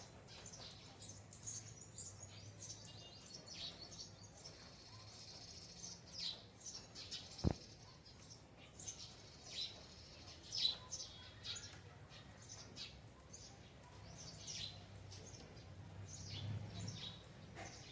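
Small birds chirping, with many short, high, falling calls through the whole stretch, over a faint low hum. A single low thump sounds about halfway through.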